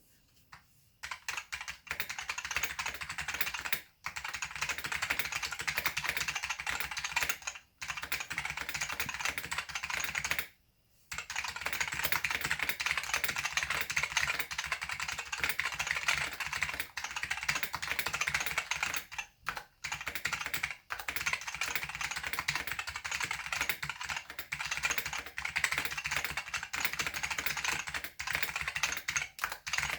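Fast typing on a Macway Keyboard Pro with simplified black Alps switches: loud, pingy keystrokes in a dense run. The typing starts about a second in and pauses briefly a few times, longest around ten seconds in.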